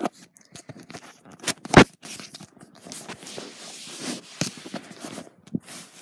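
Handling noise: rustling and scraping of fabric and plush toys against the phone, with scattered knocks and one loud thump a little under two seconds in.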